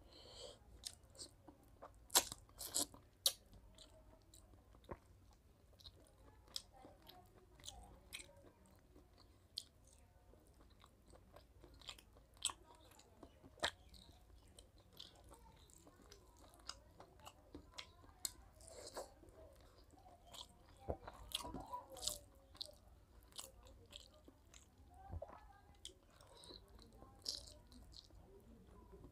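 Close mouth sounds of a man eating rice and mutton curry by hand: chewing with wet smacks and sharp clicks, the loudest few coming a couple of seconds in.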